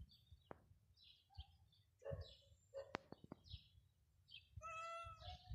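Cats meowing faintly: a few short mews, then one longer, drawn-out meow near the end, with a few light clicks.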